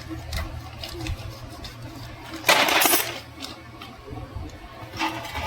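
Small metal gearbox parts of an old Royal Enfield Bullet, the gear changer among them, clinking as they are handled, with a louder half-second metallic clatter about two and a half seconds in.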